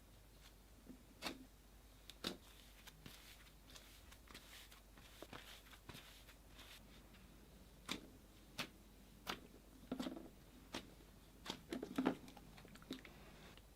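Slime being squished and stretched by hand, giving scattered sticky clicks and small pops, which come more often in the second half.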